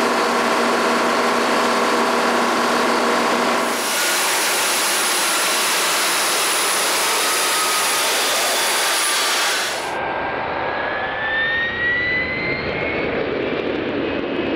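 Boeing X-32 jet engine running on the ground, heard in three joined clips with abrupt changes in tone. In the first a whine with several steady tones runs over the noise, and in the last a whine rises steadily in pitch, as the engine spools up.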